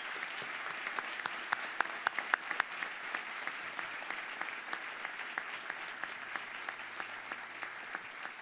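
Audience applauding, with a few sharp individual claps standing out in the first three seconds.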